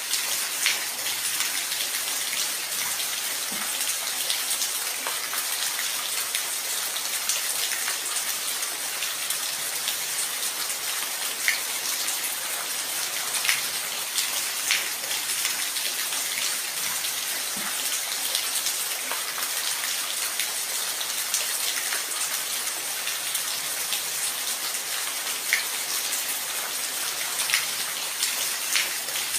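Steady rain falling, a continuous hiss with individual drops now and then ticking sharply on a surface.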